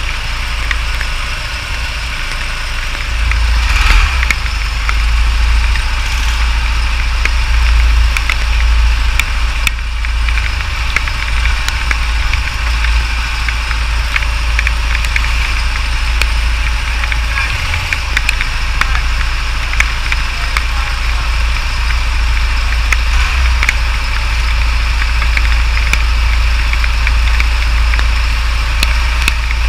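Go-kart engine idling steadily, heard from a camera mounted on the kart, under a heavy low rumble with scattered light ticks.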